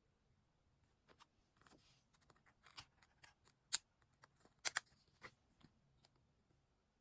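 Scissors snipping paper: a scattering of short, crisp snips and clicks, the loudest two near the middle.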